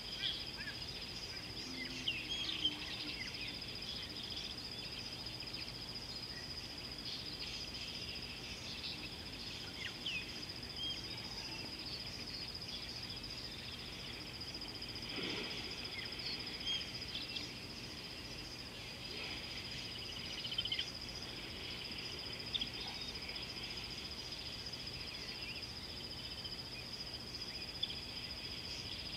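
Outdoor river ambience: a steady high-pitched insect drone runs throughout, with many short bird chirps and calls scattered over it.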